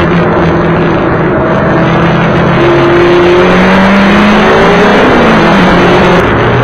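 Race car engine heard from inside the stripped cabin, running hard under load: its note climbs steadily, then falls away about five seconds in before picking up again.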